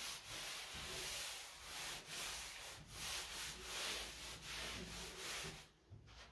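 A cloth wiping and rubbing along a plastic window frame and sill, a hissy scrubbing in uneven back-and-forth strokes that stops near the end.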